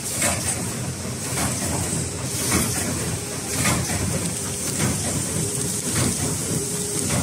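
Toilet-paper roll packaging line running: a steady machine hum with a high hiss, and a sharp stroke repeating about once a second as the wrapping machine cycles.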